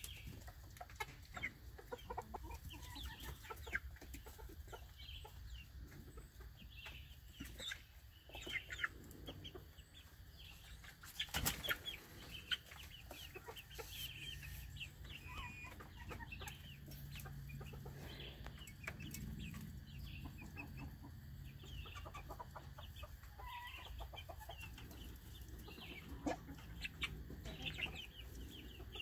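A flock of chickens clucking with short, scattered calls, and a few sharp knocks about halfway through.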